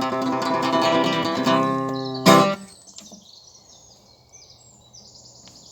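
Acoustic guitar holding the song's closing chord, then a last loud strum about two seconds in that is quickly damped. Birds chirp in the quiet afterwards.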